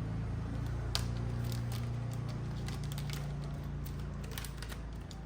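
Light, rapid clicks and ticks of small plastic parts being handled by hand, over a steady low hum.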